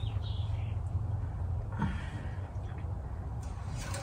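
Light handling of an engine oil dipstick and a shop rag over a steady low hum: a short squeak at the start, a light knock about two seconds in, and rag rustling near the end as the dipstick is wiped.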